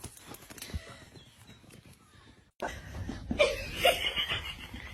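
A person laughing, which starts abruptly a little past halfway through after a quieter, noisy stretch.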